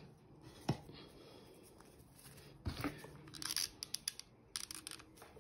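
Faint handling of plastic artificial plants: a single small click early, then light rustles and a quick string of small clicks in the second half.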